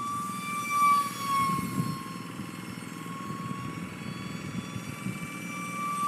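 Electric ducted fan of an E-flite UMX Habu 180 DF ultra-micro RC jet whining in flight. It is a high, steady tone that swells and bends slightly up and down in pitch about a second in as the jet passes and the throttle changes, over a low rumble.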